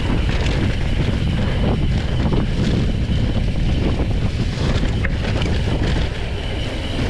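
Wind rushing over the camera microphone with the rumble of mountain-bike tyres on a dirt singletrack, and a few sharp knocks and rattles from the bike.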